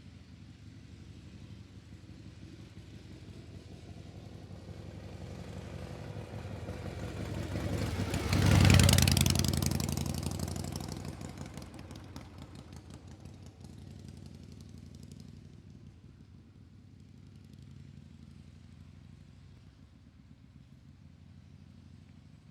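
A motor vehicle drives past: its engine grows louder over several seconds, peaks about nine seconds in, then fades away.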